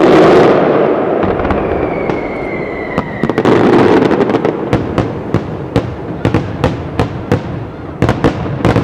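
Aerial fireworks shells bursting: a loud boom at the start, a thin whistle falling slightly in pitch, another rumbling burst, then a quick run of sharp bangs, two or three a second.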